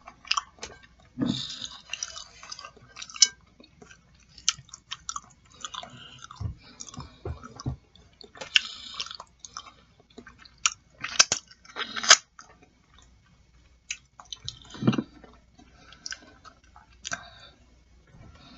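Close-miked chewing of tender boiled chicken feet: irregular mouth clicks and smacks, at no steady rhythm.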